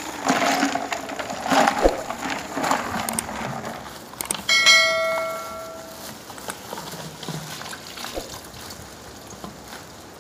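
Ice chunks knocking and a plastic bag rustling as they are lifted out of a plastic water cooler. About four and a half seconds in, a bell chime sound effect rings for about a second; it goes with a subscribe-button animation. Softer rustling of the plastic bag follows.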